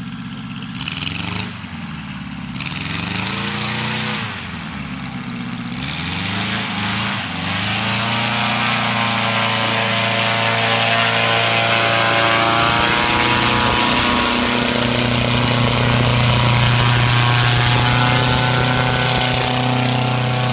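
Small engine and caged pusher propeller of a homemade ultralight trainer taxiing on grass. The engine is revved up and down a few times, then held at a steady higher speed.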